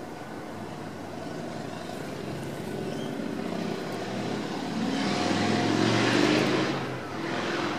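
Pacific National NR-class diesel-electric locomotives hauling an intermodal freight train, their engines running with a steady low drone as the train approaches, growing louder about five seconds in.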